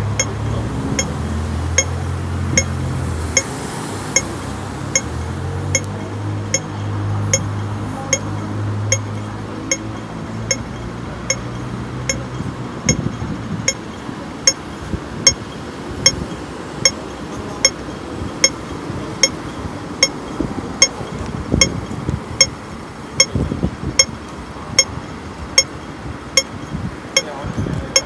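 Hong Kong pedestrian crossing signal ticking at its slow red-phase rate, a sharp metallic tick a little faster than once a second, which tells pedestrians to wait. A low vehicle engine hum runs under it for the first dozen seconds, then street traffic rumble.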